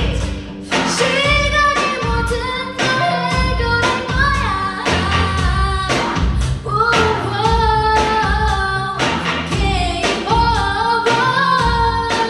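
K-pop dance-pop song with female voices singing a melody over a backing track with a steady beat and heavy bass.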